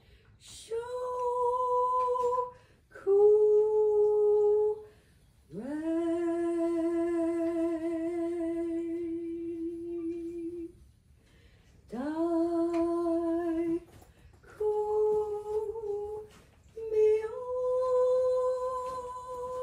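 A woman's voice intoning a chant in long held notes, one note per breath, each starting with a short upward slide and then held steady. There are about seven notes, the longest held for about five seconds in the middle. These are Reiki symbols sung to the mare as part of the healing session.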